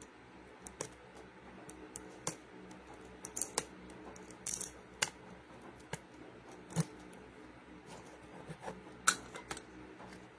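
Irregular clicks and crackles of a plastic shrink-wrap sleeve being picked at and peeled off a small plastic slime bottle, with one sharper click near the end, over a low steady hum.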